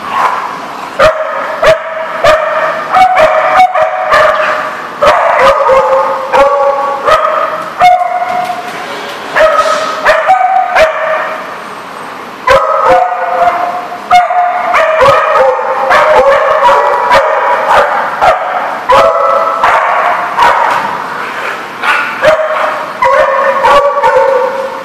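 Dogs barking and yipping in rough play, with calls coming one after another in quick bursts and brief lulls, and sharp clicks between them.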